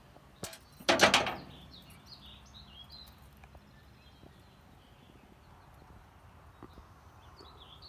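A short, harsh rasping rattle about a second in, then small birds chirping repeatedly over an outdoor background for a couple of seconds.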